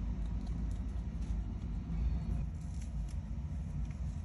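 Low, unsteady outdoor rumble with no distinct event.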